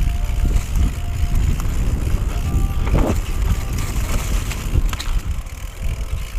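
Mountain bike running down a dirt trail: a constant low rumble from the ride, with rattles and knocks as the bike hits bumps, the sharpest about three seconds in.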